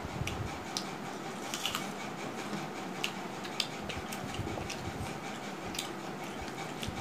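Eating by hand: fingers mixing rice and curry on steel plates and mouths chewing, heard as scattered soft clicks and smacks over a steady background noise.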